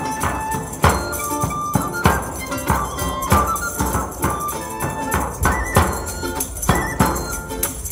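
Live medieval-style music: a frame drum and a jingling tambourine keep a steady beat under a high melody on an end-blown pipe, with a small lute-like instrument plucked alongside.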